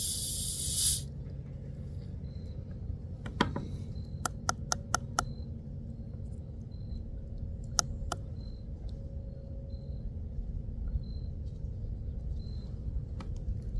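Fishing tackle being handled while a tangle of line and lures is worked out: a brief hiss at the start, then sharp clicks, with a quick run of five about four to five seconds in, and single clicks near eight seconds and near the end. A faint high chirp repeats under a second apart over a low outdoor rumble.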